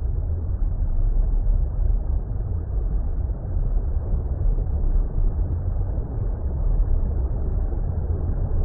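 Steady, deep water rumble noise, an underwater-style ambience with most of its weight in the bass and nothing high. It holds even, with no distinct events.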